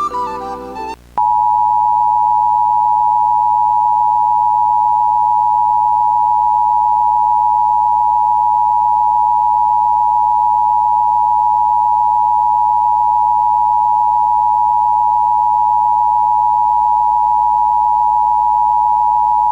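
Emergency Broadcast System attention signal: a loud, steady two-tone alert tone (853 and 960 Hz) that starts about a second in, just after a few notes of melodic music cut off, and holds without a break.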